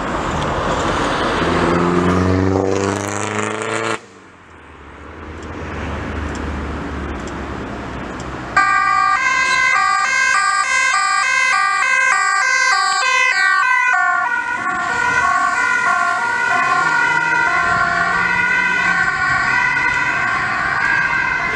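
Traffic passing first, then a Dutch ambulance's two-tone siren in fast 'versneller' mode, its two notes alternating rapidly. After a few seconds the notes alternate more slowly as the ambulance approaches.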